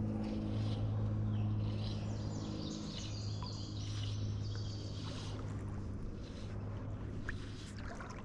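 Creek water running and sloshing around a wading angler, under a steady low hum, with a few short high chirps in the middle.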